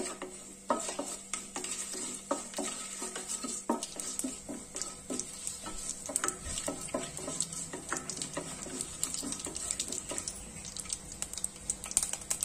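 Whole spices (shahjeera seeds, bay leaves, cinnamon, cardamom, cloves) sizzling and crackling in hot ghee in a nonstick pot, with a wooden spatula stirring and scraping them. The many small pops are the seeds crackling as the spices temper.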